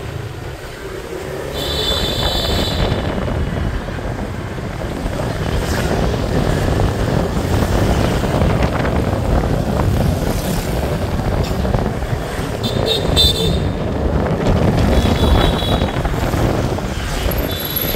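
Motor scooter riding through city traffic: a continuous low rumble of engine, road and wind, with short high beeps of horns about two seconds in and several more in the last third.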